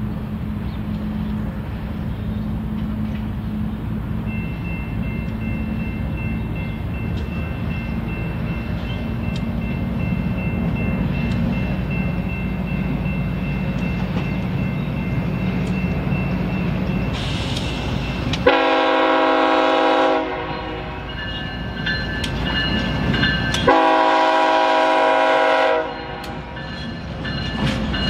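BNSF GE ES44C4 diesel locomotive, its V12 engine rumbling steadily as it approaches at the head of a grain train, then sounding its air horn in two long blasts about five seconds apart, the second slightly longer.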